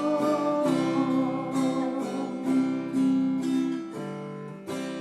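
Acoustic guitar strumming chords, closing a song; the last chord, struck near the end, is left to ring and fade.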